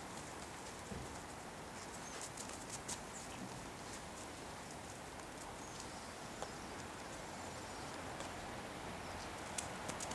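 Faint outdoor background hiss with scattered soft clicks and crunches of footsteps on thin snow over grass.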